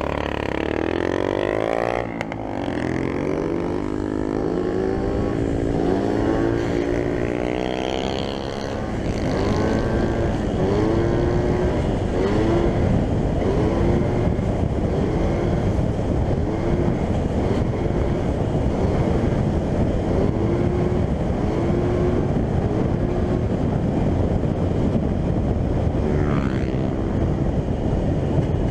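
Very loud 125cc moped engine revving up and climbing in pitch over the first several seconds as the bike accelerates. It then runs hard at steady speed under a dense rush of wind noise.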